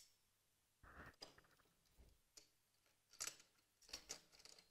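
Faint metallic clicks and scrapes of an AKMS rifle's bolt carrier and bolt being handled and slid into the receiver during reassembly: a couple of light clicks about a second in and a few more between three and four seconds in.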